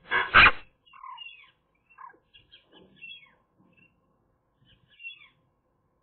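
Eurasian magpie calls at the nest: one loud harsh call near the start, then a scatter of soft, short chirping notes that drop in pitch.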